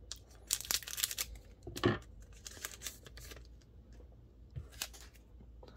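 Scissors cutting across the top of a foil Pokémon booster pack: a quick run of sharp snips and foil crinkling about half a second in, then one louder snip near two seconds, followed by lighter rustling of the wrapper.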